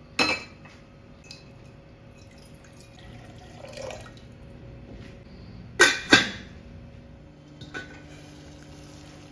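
A stainless-steel pot set down on a gas hob's grate with a clank, then water poured into it from a glass jug. About six seconds in, two sharp metallic clinks as the steel lid goes onto the pot, with a lighter tap shortly after.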